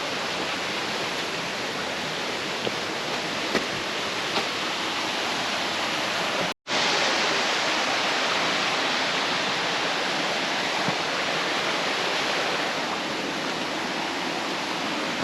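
Steady rush of falling water from a waterfall, an even hiss with no speech. About six and a half seconds in it cuts out for an instant and comes back a little louder.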